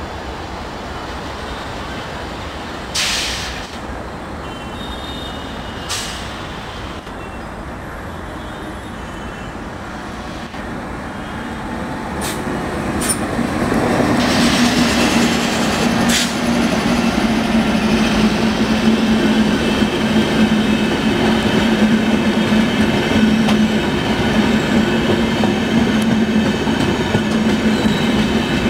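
Indian Railways electric locomotive hauling the Tejas Express approaching and passing close by. A steady rumble carries two brief sharp sounds in the first few seconds. It swells to a loud rush about fourteen seconds in as the locomotive goes past, then the coaches keep rolling by with a steady low hum and a high, even whine.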